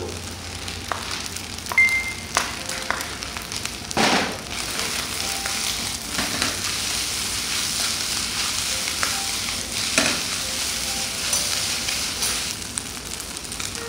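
Fried rice sizzling in a wok over a gas camping stove, with the metal ladle now and then clinking and scraping against the pan as the rice is stirred and tossed.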